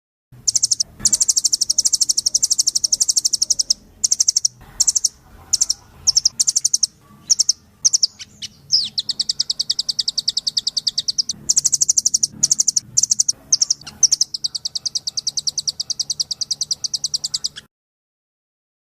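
Recorded birdsong played as a training 'masteran' for songbirds: very rapid, high-pitched trills in long runs broken by short bursts, ending abruptly about two seconds before the end.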